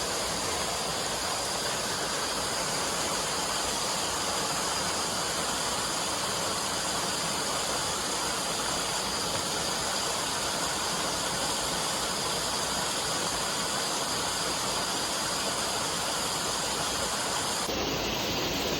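Rushing water of a stream or weir, a steady even hiss.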